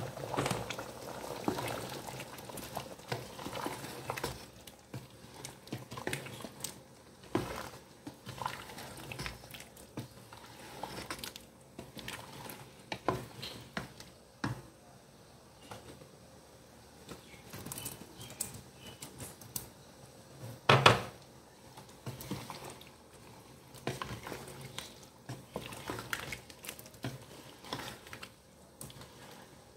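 Ladle stirring a pot of simmering coconut-milk curry with banana slices: irregular knocks and scrapes of the utensil against the pot over a bubbling simmer, with one louder knock about two-thirds of the way through.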